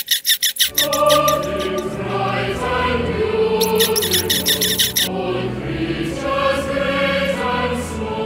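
A quick run of high, evenly spaced chirps stops about half a second in, and choral music with long held chanted notes takes over. Short runs of the same high chirping come back over the singing twice.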